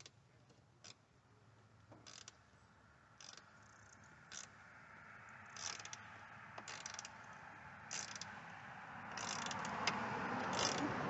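Short clicking, rattling strokes of hand work on a car's tail-light assembly, coming irregularly about a dozen times, over a steady hiss that grows louder in the last few seconds.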